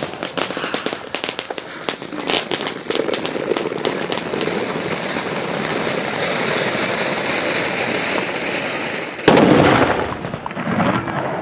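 Ground fountain firework spraying sparks: dense crackling at first, then a steady hissing spray that builds, broken by a single loud bang about nine seconds in, after which it dies down.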